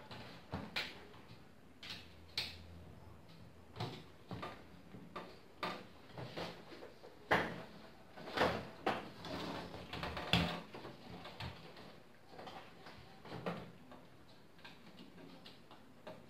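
Hands working on a Thermaltake Versa N21 PC case and its parts: scattered clicks, knocks and rattles of metal and plastic at an uneven pace, with a longer stretch of scraping and rustling about eight to ten seconds in.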